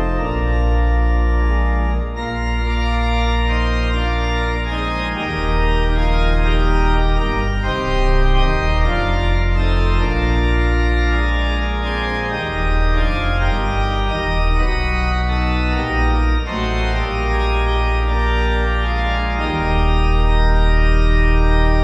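Background organ music: slow, sustained chords over deep held bass notes, the harmony changing every few seconds.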